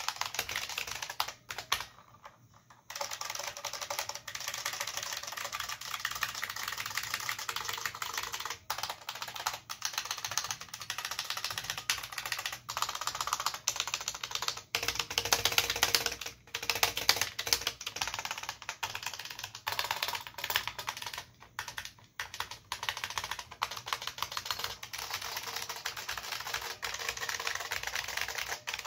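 IBM Model F122 keyboard's capacitive buckling spring switches clacking under continuous rapid typing, with a short pause about two seconds in.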